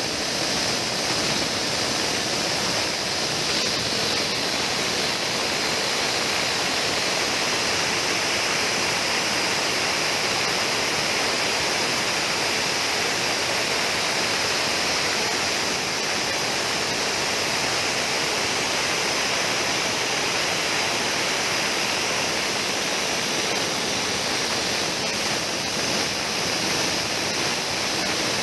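Dry-coffee huller, belt-driven by a small petrol engine, running steadily while it hulls dried coffee and discharges the green beans. It makes an even, loud hiss-like noise without a change throughout.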